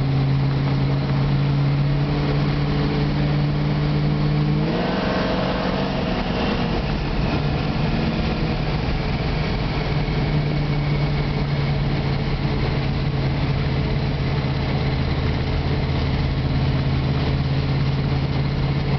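Plymouth Barracuda's engine, carburettor poking up through the hood, running steadily while the car drives, heard from the car. About five seconds in it picks up and pulls harder for a couple of seconds, then settles back to an even cruising hum.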